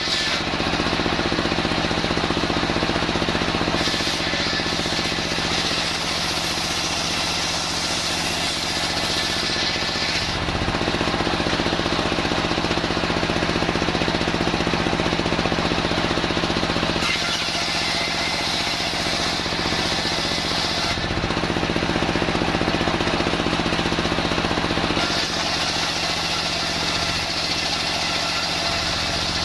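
Homemade circular saw rig running steadily while its blade saws old timber, the sound changing every few seconds as the cut comes and goes.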